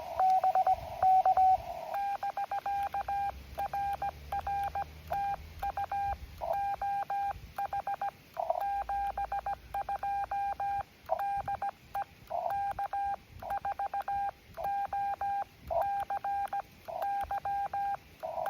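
Morse code from an amateur radio transceiver: a single steady beep, switched on and off in dots and dashes with short gaps between characters. During the first second or so the tone is louder and sits in radio hiss. From about two seconds in it is a cleaner, quieter, unbroken stream of code.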